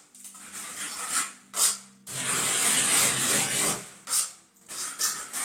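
Steel trowel scraping across freshly applied stone-grain decorative plaster: a few short strokes, then one longer stroke of nearly two seconds about two seconds in, then more short strokes.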